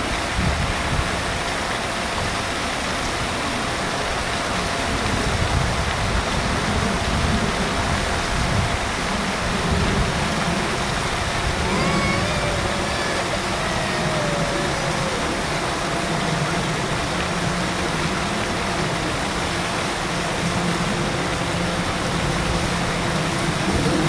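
Steady rushing outdoor background noise with an unsteady low rumble underneath. A few faint chirps that glide up and down come about halfway through.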